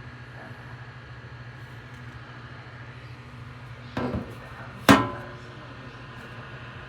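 Bladeless neck fan running with a steady low hum. About four seconds in there is a brief scrape, then near five seconds a sharp knock with a short ring, the loudest sound.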